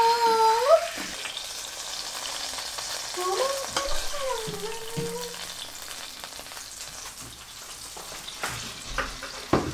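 Food sizzling in a frying pan: a steady hiss that slowly fades, with a sharp click near the end.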